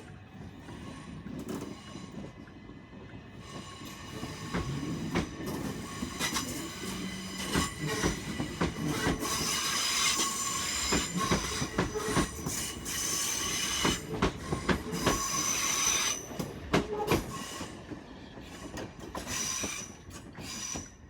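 Class 377 electric multiple unit moving off, its wheels squealing and clicking over the rail joints and points, loudest about halfway through and then fading as it draws away.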